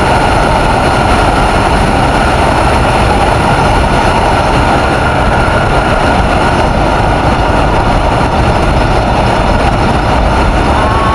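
Steady rush of wind on the microphone over the running engine and road noise of a TVS Ntorq 125 single-cylinder scooter cruising at about 90 km/h, near its top speed.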